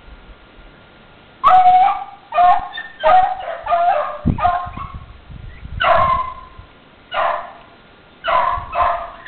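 Dogs baying in repeated short cries while running a rabbit on its track, starting about a second and a half in and coming about ten times at uneven intervals.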